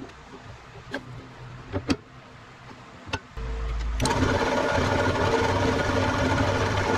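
Old Craftsman wood lathe: a few sharp knocks while it stands still, then its electric motor switches on with a low hum about three and a half seconds in and runs steadily from about four seconds.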